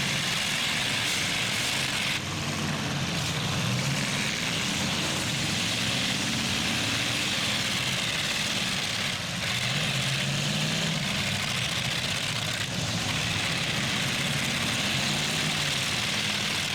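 Engines of demolition derby trucks and SUVs running and revving, their pitch rising and falling over a steady mechanical din.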